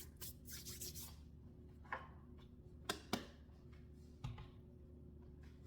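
A spoon stirring and scraping across a pan of meat filling as flour is worked into the broth, followed by a few light clicks.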